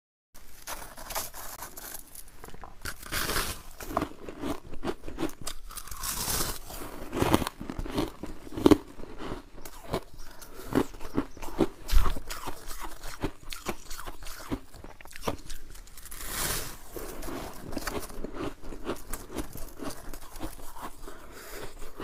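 Clumps of freezer frost crunching in close-up as they are pressed, broken off and bitten: a dense run of crackly crunches, the sharpest about 9 and 12 seconds in.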